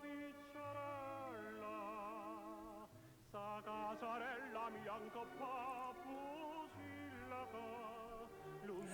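Quiet background music: a male operatic tenor singing a Neapolitan song with strong vibrato over a soft accompaniment, the voice dropping out briefly about three seconds in.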